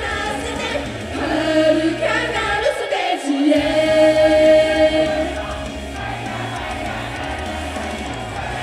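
Live pop song from an idol group: several voices singing together over a backing track, one note held for about two seconds midway, after which the voices drop away and the music carries on quieter.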